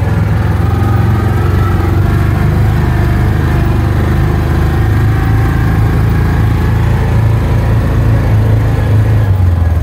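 Side-by-side utility vehicle's engine running steadily as it drives slowly over grass, a constant low hum.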